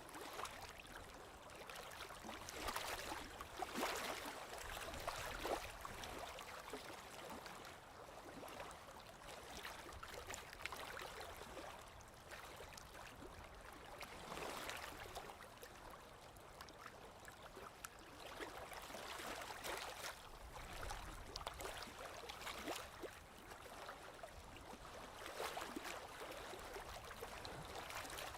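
Small waves lapping and splashing gently against a lake shore, in soft uneven surges every few seconds.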